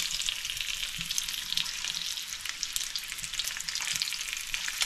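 Bacon strips sizzling and crackling in a frying pan, with a fork now and then tapping and scraping against the pan as the strips are turned.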